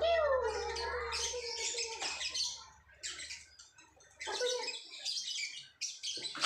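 A toddler's high, wordless vocalizing, gliding down in pitch over the first couple of seconds, then soft whisper-like hissing with an odd light knock.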